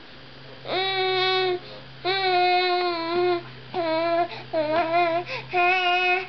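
Eight-month-old baby vocalizing in long, sing-song 'aah' notes, five in a row with short breaths between; most are held on a steady pitch, the fourth wavers up and down.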